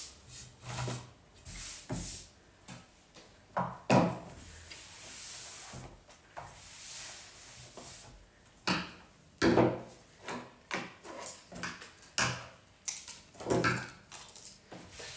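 Handling noise of a flower arrangement in a wicker basket: rustling foliage and stems with irregular sharp clicks and knocks, the loudest about four seconds in and again around nine and a half and thirteen and a half seconds.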